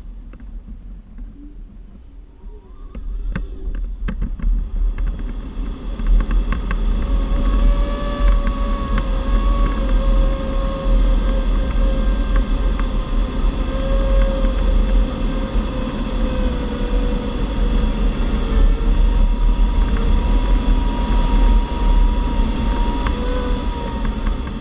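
Airflow rushing over a G103 Twin Astir glider's canopy, heard in the cockpit as a steady noise with a low rumble. It grows louder over the first few seconds and then holds. A few clicks come early, and a faint wavering tone runs along under the rush.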